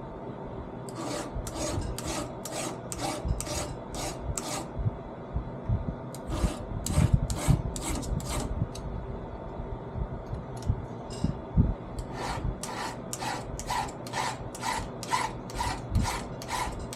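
Flat file rasping down the depth gauges (rakers) of a chainsaw chain through a progressive depth gauge tool, in short, even strokes about two a second. There are three runs of strokes: about eight in the first few seconds, a shorter run a little past the middle, and a steady run of about a dozen near the end.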